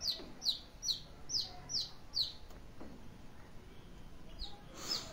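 A bird chirping over and over in short, high notes that fall in pitch, about two or three a second; the calls stop a little over two seconds in and start again near the end.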